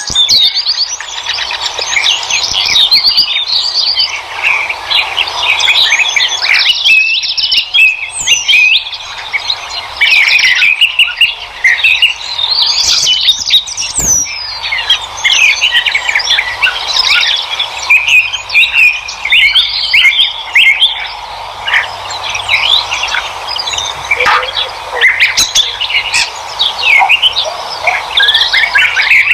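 A dense chorus of many songbirds chirping and singing at once, short overlapping chirps and trills with no pause.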